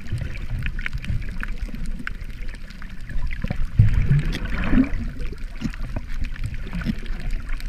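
Underwater sound heard through a camera's waterproof housing: a low, muffled rumble of moving water with scattered faint clicks and crackles. A louder gurgling swell comes about four seconds in.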